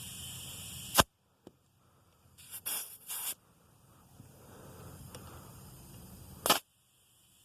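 A steady hiss that cuts off after a sharp click about a second in, then two short hissing bursts, and another sharp click near the end.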